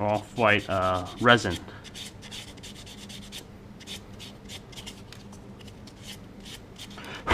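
Sanding pad rubbing over a primed resin model-kit part in short, quick strokes, about two or three a second, to take down a leftover mold line. A single sharp knock comes right at the end.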